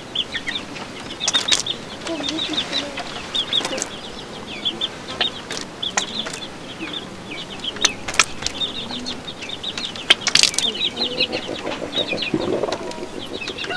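Chickens cheeping and clucking: a steady run of quick, high, short chirps, with a few sharp clicks and some lower calls near the end.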